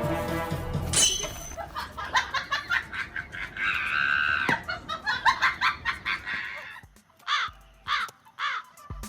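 Music fades into a rapid string of sharp clicks with a brief chirping sound in the middle, then three short bird-like calls that rise and fall in pitch near the end.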